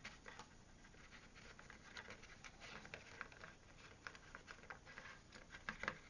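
Light, scattered ticks and rustles of stiff card pieces being handled and fitted together, with a few sharper ticks near the end.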